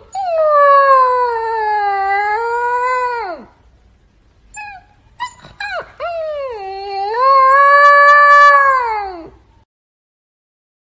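Husky puppy howling: two long howls of about three and a half seconds each, each rising at the start and sliding down at the end, with a couple of short squeaks between them.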